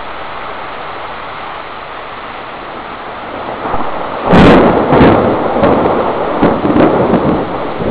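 Heavy thunderstorm rain pouring steadily, then about four seconds in a loud, close thunderclap that cracks suddenly and rumbles on for a few seconds.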